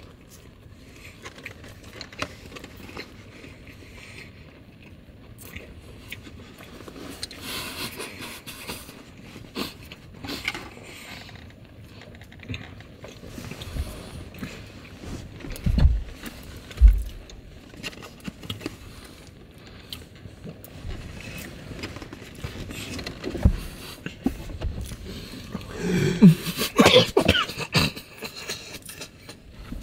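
Two people chewing and straining to swallow large mouthfuls of fried chicken, with rustling movement, two dull thumps about halfway through, and muffled coughs and throat noises near the end.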